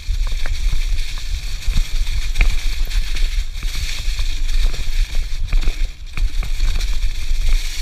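Mountain bike riding over a dirt trail covered in dry leaves: tyres crunching through the leaves, with frequent rattling clicks from the bike. Constant heavy wind rumble on the handlebar-mounted GoPro's microphone.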